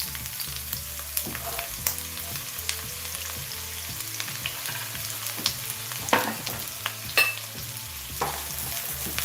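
Food sizzling in hot oil in a pan while being stirred, with a utensil scraping and knocking against the pan now and then.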